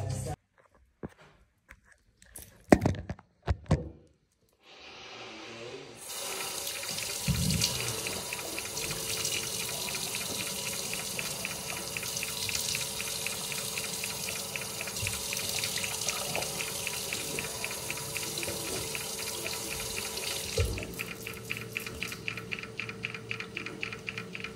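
A few sharp clicks in near silence, then a bathroom tap running into a sink while hands splash water onto a face. Near the end the running water stops.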